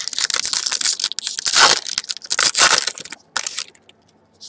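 Foil wrapper of a baseball trading-card pack crinkling loudly as it is torn open by hand, stopping about three and a half seconds in.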